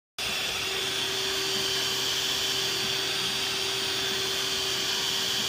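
Imarflex IMX-345S electric stand mixer's motor running at a steady speed with a constant whine, its beaters turning in the stainless steel bowl. It starts abruptly and stops sharply at the end.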